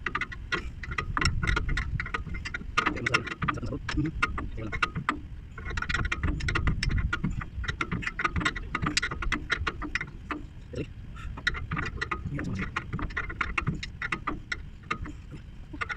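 Metal wrench clicking and clinking on an air brake pipe fitting as it is tightened, quick irregular runs of small clicks with a steady low rumble underneath.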